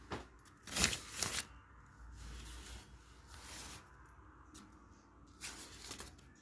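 A steel ladle scraping and stirring diced coconut around a metal kadai, the pieces roasting in a little oil. There are quick scrapes about a second in and again near the end, with quieter rattling of the pieces between.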